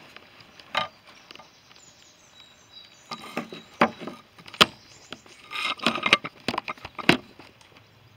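Handling noise from a small video camera being set down and repositioned: scattered knocks, taps and scrapes, a few at first and then a busier cluster from about three seconds in.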